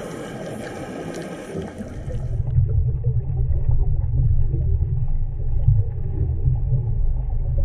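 Underwater sound of a scuba diver's exhaled air bubbles: a low bubbling rumble that grows louder and duller about two and a half seconds in.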